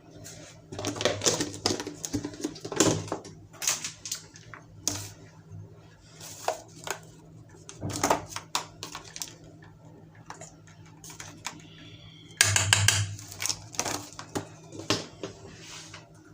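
Metal spoon clinking, tapping and scraping against a pan as custard powder and sugar are spooned in and stirred: irregular sharp knocks, with a denser burst of clatter near the end.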